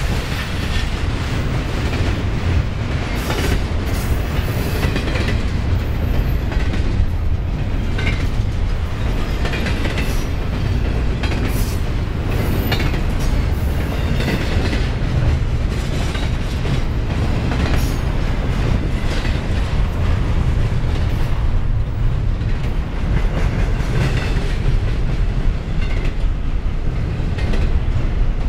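Double-stack intermodal well cars rolling past, their steel wheels on the rails giving a steady low rumble with a running stream of clicks and clacks.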